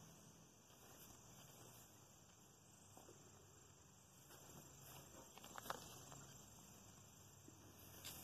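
Faint, steady high-pitched trilling of crickets, with a single sharp click about five and a half seconds in.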